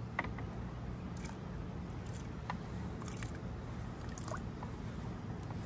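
Pieces of cut smoked sausage slid off a plastic cutting board, dropping into a pot of water with a few soft, scattered plops and taps over a steady low rumble.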